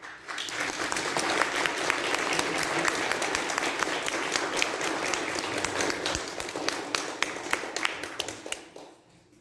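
Congregation applauding, a dense run of many hands clapping that starts abruptly, holds steady, and dies away near the end, welcoming a newly installed pastor.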